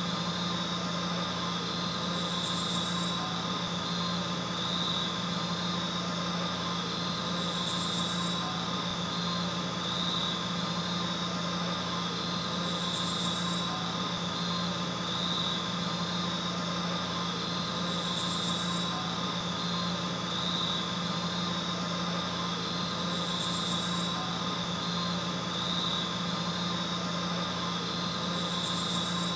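A steady machine-like hum: a low drone and a high whine that hold throughout, broken about every five seconds by a short high hiss, six times in all.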